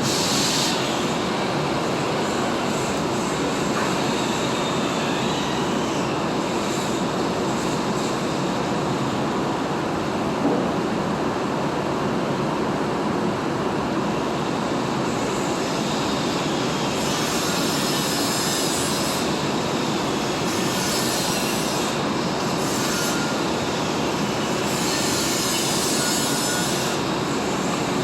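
TIG welding arc running steadily as a lay-wire weld is laid, a dense, even hiss and buzz with no break. In the second half its sound turns brighter and crisper several times, for a few seconds at a time.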